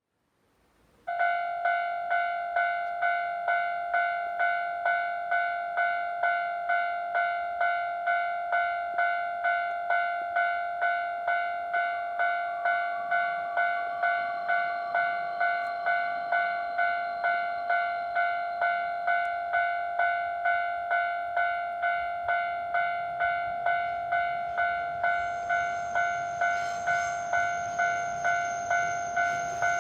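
Japanese level-crossing warning bell ringing in a steady repeating ding, about one and a half strikes a second, starting about a second in; it signals a train approaching an unbarriered crossing. In the last few seconds the rumble of the approaching train rises under the bell, with a high steady tone joining it.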